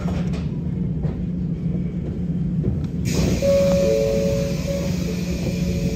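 485-series electric multiple unit running on the line, a steady low rumble from the wheels and motors. About halfway through, a loud hiss comes in, with two short steady tones.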